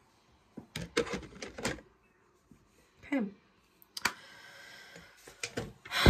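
Scattered sharp clicks and taps of small objects being handled, a short vocal sound falling in pitch about three seconds in, then a louder breathy vocal sound near the end.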